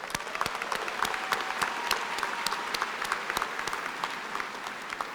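Audience applauding: many hands clapping at once, easing off slightly toward the end.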